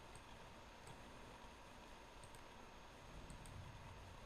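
A few faint computer mouse clicks, scattered and some in quick pairs, over quiet room tone with a faint steady hum.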